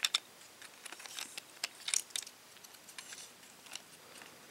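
Small plastic Transformers Mechtech Bumblebee figure being handled and transformed: irregular light clicks and taps of plastic parts moving and snapping under the fingers, a little louder near the start and about two seconds in.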